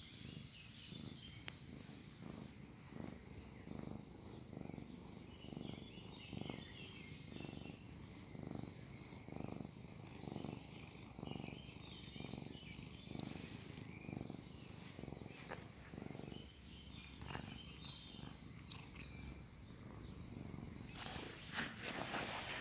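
Domestic cat purring close to the microphone, in steady waves that swell and fade with each breath, a little more than once a second. Near the end there is a louder rustle.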